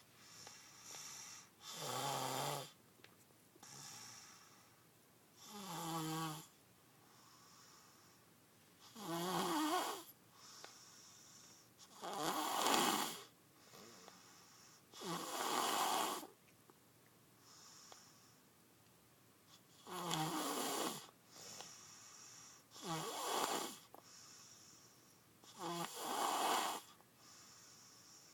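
Snoring in deep sleep: about eight loud snores, one roughly every three seconds, each with a low rattling buzz, and soft whistling breaths between them.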